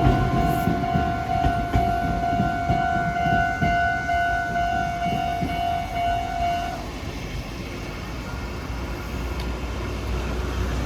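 A Meitetsu Komaki Line train passing over a level crossing, its wheels clacking over the rail joints, while the crossing's electronic warning bell rings in an even pulsing tone. The bell cuts off about seven seconds in, and the train's rumble fades.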